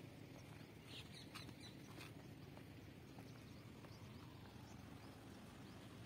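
Near silence: faint outdoor ambience with a few soft taps in the first couple of seconds.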